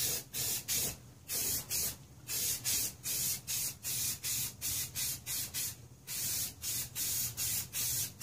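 Aerosol spray-paint can spraying in short hissing bursts, about two a second, with a short pause about six seconds in.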